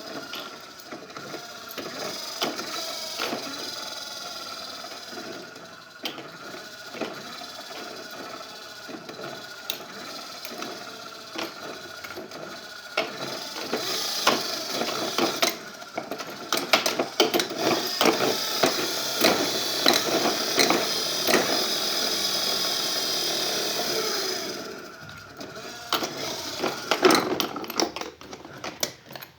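A small motor running steadily, with many short clicks and knocks over it. It runs louder for about ten seconds from about halfway in, then drops back.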